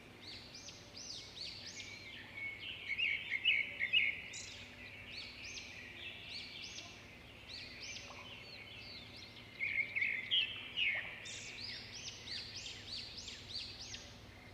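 A flock of small songbirds chirping and calling over one another in a steady chorus of high, quick notes, with louder bursts of rapid chattering about three seconds in and again around ten seconds in.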